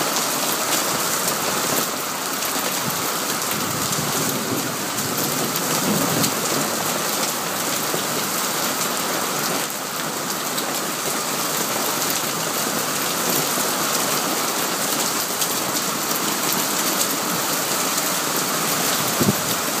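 Hailstorm: hail and heavy rain pelting wet paving, a steady dense hiss made of countless small impacts, with one sharp click near the end.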